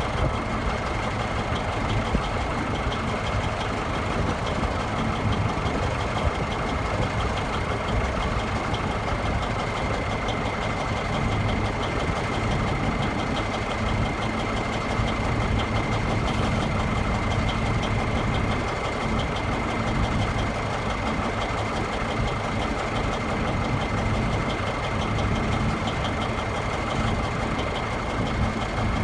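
Case backhoe loader's diesel engine idling steadily, with a thin, steady high-pitched whine over it.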